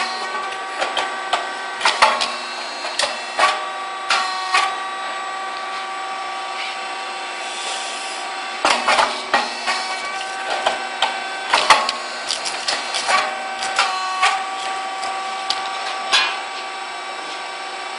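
Puffed wheat cake machine running: a steady mechanical hum under clusters of sharp pops, clacks and knocks as the moulds open and the cakes are ejected, with a few seconds' lull between cycles.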